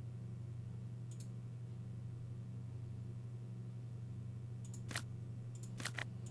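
Mouse clicks over a steady low electrical hum. There is one faint click about a second in, then a sharper click about five seconds in and a quick pair near the end.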